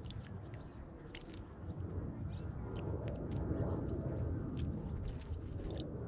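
Outdoor garden ambience at a bird bath: a low wind rumble on the microphone that swells in the middle, with scattered sharp little clicks and a few faint high chirps of small birds.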